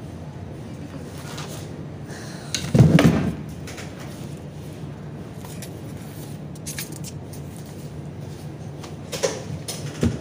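Steady low hum of a small room, with one loud thud about three seconds in and a few light clicks and knocks near the end.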